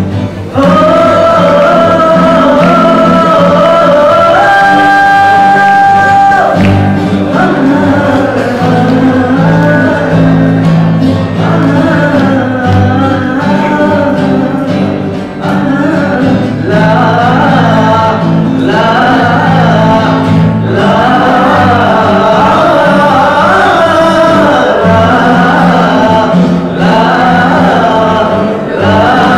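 Male vocalist singing live to acoustic guitar accompaniment, with one long held note about four seconds in.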